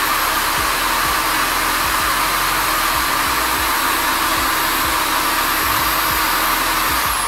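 Electric drill running at full speed with a steady high whine, its knurled chuck pressed against an office-chair caster wheel to spin it against a cleaning cloth. Near the end the whine starts to fall as the drill winds down.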